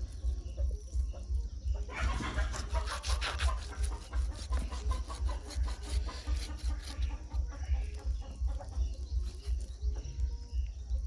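A kitchen knife cutting and scraping raw goat meat and bone over a steel tray. The sound is busier from about two seconds in to about seven, where some bird calls join the cutting noise.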